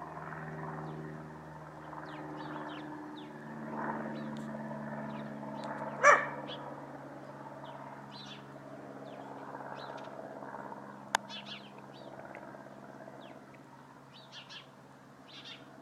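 Small birds chirping now and then in short high notes over a steady low mechanical hum. One short loud sound comes about six seconds in, and a sharp click about eleven seconds in.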